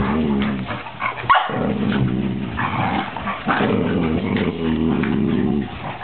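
Two 13-week-old puppies, a pit bull and a border collie, play-fighting with nearly continuous wavering growls and whines, broken by one short pause a little over a second in.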